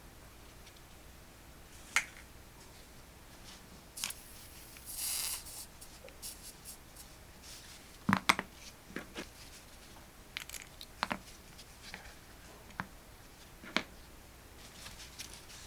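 Small tools being handled on a workbench during soldering work: scattered sharp clicks and taps, with a short hiss about five seconds in.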